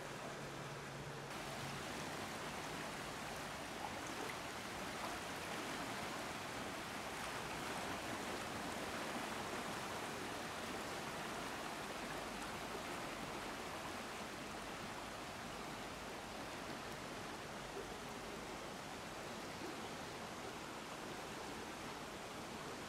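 Steady rush of a swollen, fast-flowing river running at flood stage after heavy rain.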